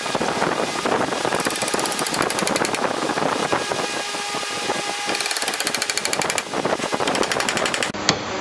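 Reciprocating saw plunged into a pine beam, running hard and chewing out the waste wood of a mortise with a fast, rattling cutting stroke. About eight seconds in it gives way to a few sharp knocks of chisel work.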